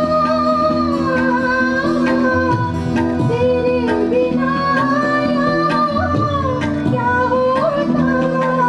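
A woman sings a devotional bhajan into a microphone in long, held, gliding notes. Under her voice are a steady sustained accompaniment and regular percussion strokes.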